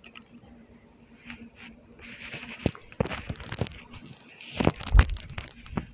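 Two stretches of scraping, rustling noise with sharp clicks right on the recording device's microphone, the second with a heavy low thump: handling or rubbing noise on the microphone.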